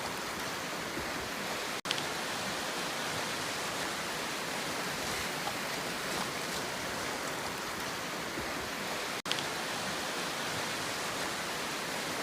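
Steady rushing of the sea, an even wash of water noise, broken twice by a momentary dropout in the audio.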